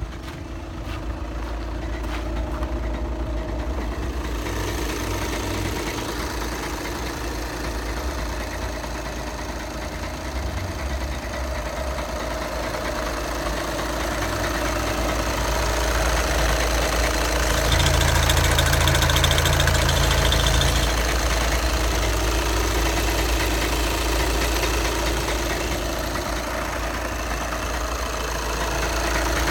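VW Passat B7's 2.0 TDI four-cylinder diesel (CFFB, 140 PS) running with a noise from the DSG gearbox, which the owner takes for the dual-mass flywheel, as is usual on many Passats. The sound grows louder past the middle, loudest for about three seconds.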